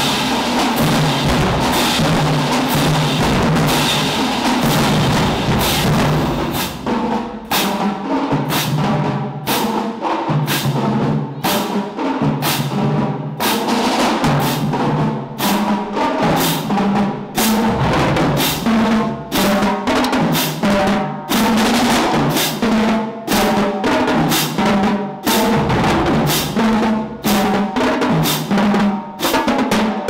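Marching band drumline playing a cadence on bass drums, snare drums, tenor drums and cymbals. After about seven seconds the strokes become sharper and more clipped, with short breaks between phrases.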